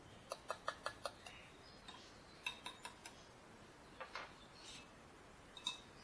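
Spoon clinking against a small feeding cup while hand-feeding formula for parrot chicks is stirred, with the cup knocking into a stainless water-bath bowl: a quick run of five light taps, then scattered single and paired clinks.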